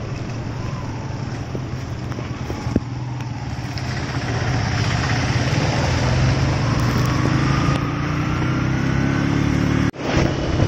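Motorcycle being ridden on the road: a steady low engine hum under wind and road noise, growing louder about halfway through, with a slowly rising engine note near the end. The sound cuts out for an instant just before the end.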